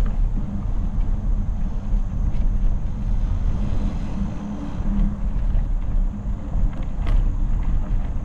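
Steady low rumble of a Specialized Epic mountain bike's tyres rolling along a dirt trail, mixed with wind rushing over the microphone, with a couple of light clicks from bumps along the way.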